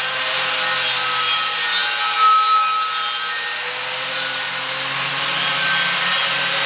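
Electric angle grinder running steadily under load, its disc grinding the rim of a steel CO2 tank bottom with a continuous scraping hiss over a high whine.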